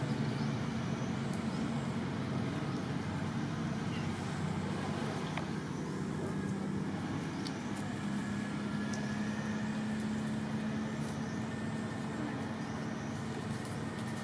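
Steady low engine hum, like a motor vehicle or generator running, with a faint even noise over it and a few faint high chirps.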